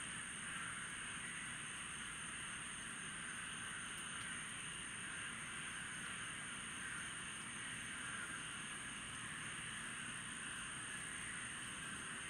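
Steady night chorus of insects and frogs: a continuous high-pitched insect trill over a denser chirring chorus lower down, unchanging throughout.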